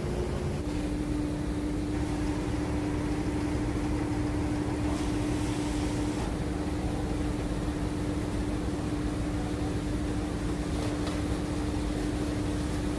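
Cargo boat's engine running with a steady drone and hum; the hum steps slightly lower in pitch about half a second in.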